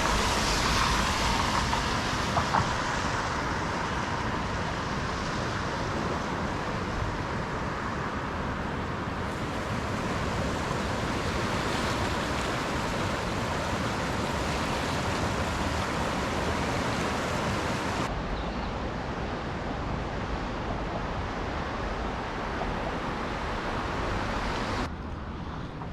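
Steady road and engine noise of a car driving, an even rushing sound. The hiss changes abruptly about two-thirds of the way through, and the sound drops in level just before the end.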